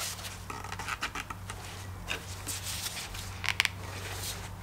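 Handling noises of a new paper oil filter element being fitted onto a plastic oil filter housing cap: scattered light clicks, scrapes and glove rustles, a few sharper ones in the second half.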